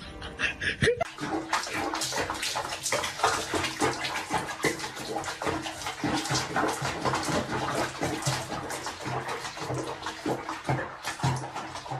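Water sloshing and splashing in a bathtub around a cat sitting in the bath, starting about a second in and going on with many small splashes.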